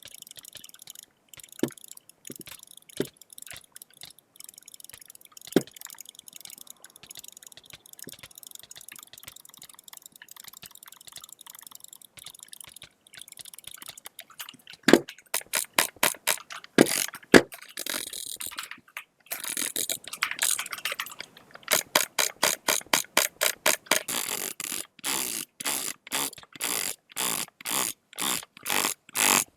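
A series of sharp clicks. They are sparse and faint at first, with a few loud ones about halfway through, then become fast and regular, about two to three a second, for the last third.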